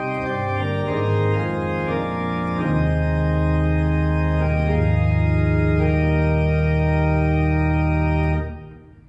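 Austin pipe organ (opus 2554, 1972) playing a passage of sustained chords on the choir division's bright principal chorus with its two-rank cymbal mixture. A deep bass note comes in about a third of the way through. Near the end the chord stops and the sound dies away in the room's reverberation.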